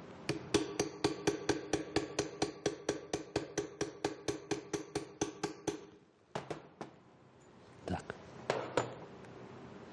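Hammer striking a steel rivet set held on a solid rivet on a vise anvil, peening the rivet to form its head. About four quick strikes a second for roughly five seconds, each with a short metallic ring, then a few separate knocks as the work is handled.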